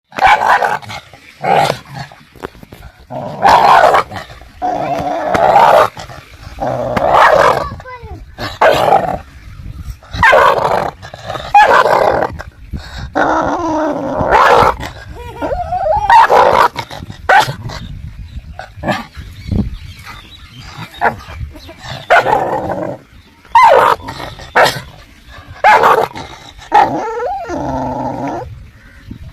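Dogs barking over and over, loud barks coming every second or two, with a few longer drawn-out cries between them.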